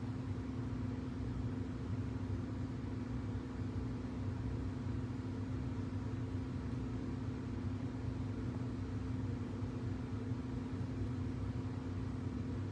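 Steady low mechanical hum with one constant tone, unchanging throughout.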